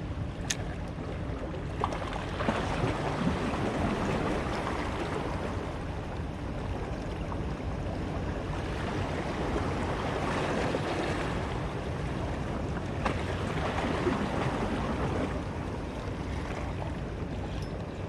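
Wind and lapping sea water: a steady rushing noise that swells and eases every few seconds, with a few small clicks.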